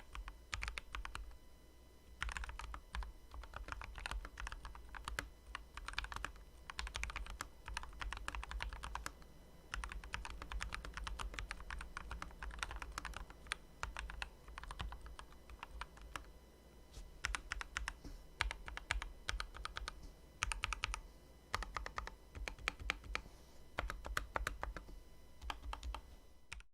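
Typing on a Redragon K552 mechanical keyboard: a run of keystrokes in bursts, with short pauses between bursts.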